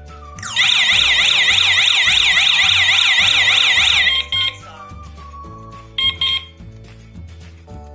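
PG-103 wireless alarm siren sounding a loud, fast warbling wail for about three and a half seconds, then a few short chirps, over background music.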